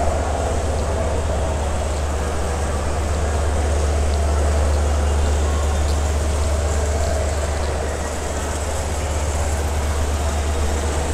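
Busy railway station concourse ambience: a steady low rumble under the murmur of people.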